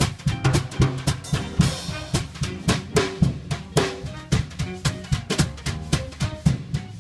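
Swing jazz band playing an up-tempo number, the drum kit prominent with a fast, even beat of snare and bass-drum strikes under bass and horn notes.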